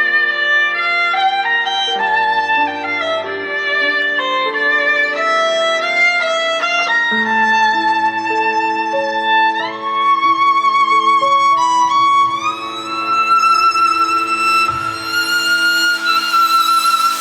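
Instrumental music: a violin plays a melody with vibrato and upward slides over held lower string notes, climbing higher and growing fuller toward the end.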